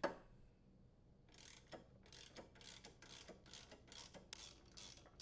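Socket ratchet clicking as it is worked back and forth to unthread the lawn mower's blade bolt. A faint, steady run of short ratcheting bursts, about three a second, starts about a second in.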